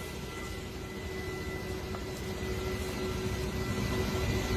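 Kamov Ka-32 rescue helicopter's engines and rotors heard from inside the cabin with the side door open: a steady rush with a thin whine, growing gradually louder.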